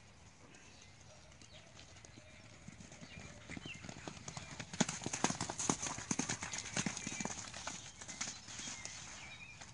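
Hoofbeats of two young horses cantering and galloping across a wet, muddy pasture: a quick, uneven patter of thuds that builds about four seconds in and thins out near the end.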